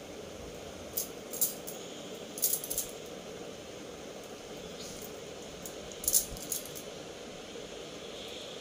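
Bangles clinking on a wrist as a hand squeezes wood apple pulp in a glass bowl. They come in a few short bright jingles: about a second in, again around two and a half seconds, and the loudest about six seconds in.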